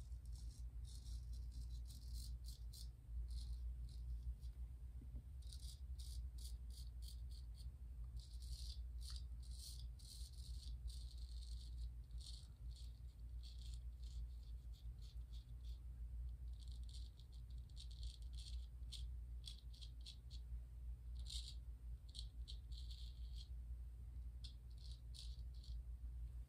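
Gold Dollar 208 straight razor scraping off lathered stubble: faint, crisp rasping strokes, short and quick, coming in runs of several at a time over a steady low hum.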